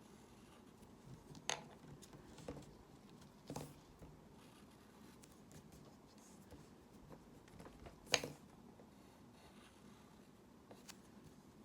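Faint scattered taps and clicks of drawing tools being handled while drawing, about four sharp ones over several seconds, the loudest about eight seconds in, over a low room hiss.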